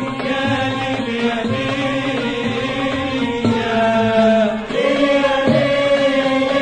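Egyptian classical Arabic music, a dawr performed by an ensemble of voices with traditional instruments, the singing held in long notes that bend and shift.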